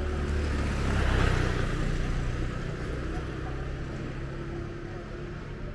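A motor scooter passes close by on a cobbled street, its small engine loudest about a second in and then fading away.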